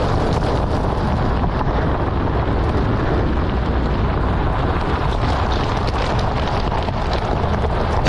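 Wind rushing over the microphone of a camera held out the side window of a moving vehicle, mixed with steady tyre and road noise from driving on a gravel road.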